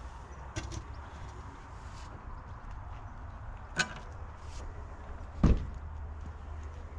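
A sharp knock and then a heavy low thump, such as a door or a heavy object shutting or being set down, over a steady low hum.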